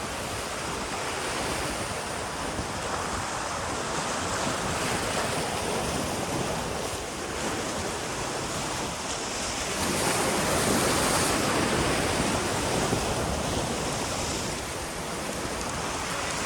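Waves washing and breaking against a jetty in rough surf, with wind on the microphone. The wash swells louder for a couple of seconds about ten seconds in.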